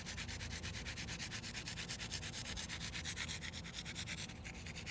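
Gloved hand rubbing a garlic and curry spice rub into a raw leg of lamb on a wooden cutting board: a steady, fast, even rubbing.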